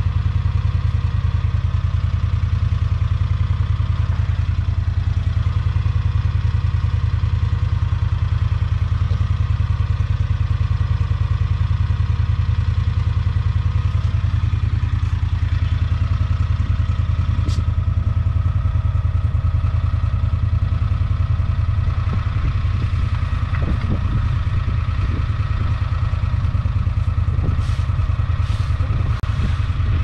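A small vehicle's engine running steadily under way on a rough trail, with the rattle and clatter of the vehicle over the ground and a few knocks and bumps in the last several seconds.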